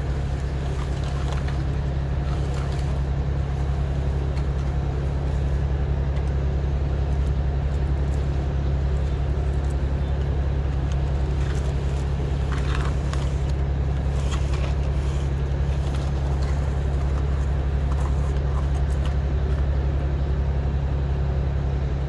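A steady low mechanical hum that holds unchanged throughout, with a few faint clicks about halfway through.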